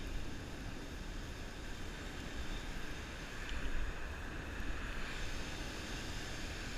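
Wind buffeting a body-worn action camera's microphone in a steady low rumble, with the hiss of breaking surf washing up the beach.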